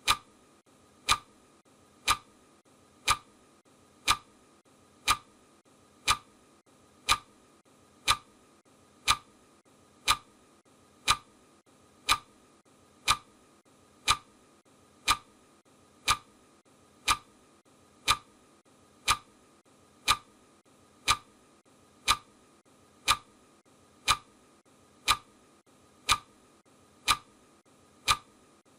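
Clock ticking, one sharp tick each second, counting off the seconds of a countdown timer.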